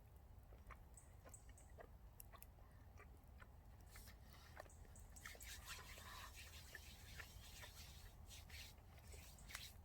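Faint sounds of someone chewing a ribeye steak, with scattered small clicks and a denser stretch of crisp clicking in the second half.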